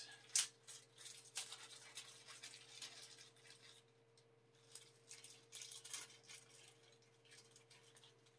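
Hands rummaging and handling small parts: light rustling, scraping and small clicks, busiest in the first three seconds and again around five to six seconds in, over a faint steady hum.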